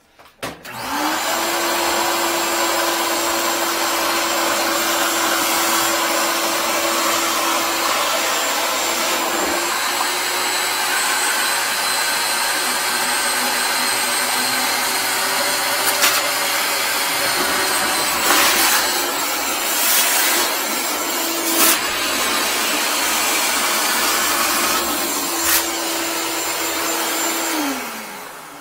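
Ridgid wet/dry shop vacuum switched on about a second in, its hose in a clogged toilet bowl, running steadily to suck the blockage back out of the drain, with a few short sharp noises partway through. It winds down near the end.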